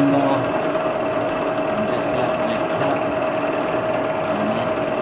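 Milling machine spindle running fast with its cutter engaged, chamfering the back edge of the splines on a metal shaft as the shaft is turned in an indexer: a steady whine over a dense cutting hiss.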